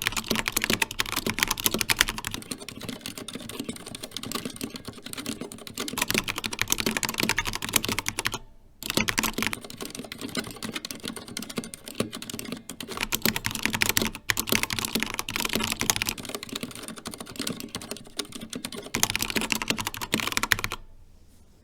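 Mechanical keyboard with Cherry linear switches being typed on in fast, continuous keystroke clicks. The typing breaks off briefly about a third of the way in and stops shortly before the end.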